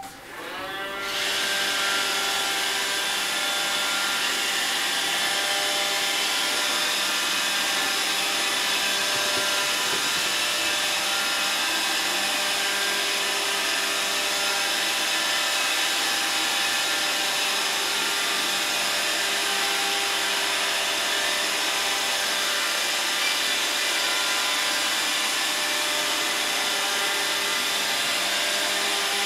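Roomba robot vacuum running: its motors spin up in the first second or so, then settle into a steady whirr with a hum of several steady tones.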